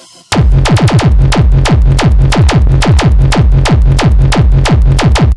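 Tribecore/hard-tekno track at 180 bpm. After a short quiet moment, a distorted kick drum slams back in about a third of a second in and pounds three times a second over a heavy bass line. It drops out for an instant right at the end.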